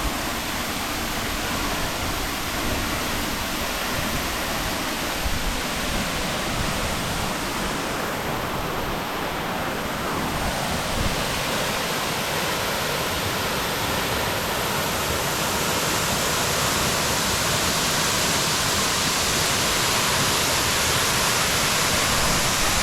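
Waterfall rushing steadily, the fall running heavy; the roar grows a little louder and brighter over the last several seconds.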